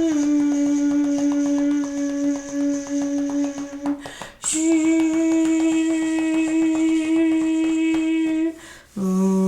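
A woman's voice singing long, steady held notes in a vocal-play exercise, her voice lightly pulsing as she pats her tummy. The first note dips slightly in pitch at the start and is held about four seconds; a brief breath follows, then another long note, then a lower note near the end.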